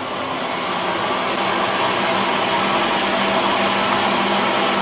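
Countertop electric oven, just switched on to heat up, running with a steady fan whoosh and a low hum that grows slightly louder.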